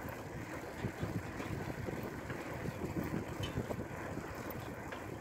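Wind buffeting the microphone of a handheld camera while riding a bicycle: an uneven low rumble.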